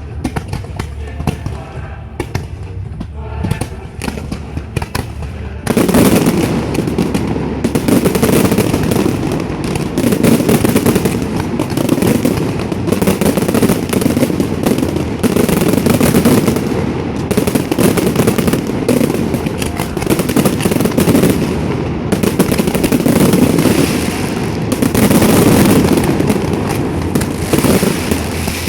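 Fireworks display: separate bangs at first, then from about six seconds in a dense, unbroken barrage of overlapping bangs and crackle.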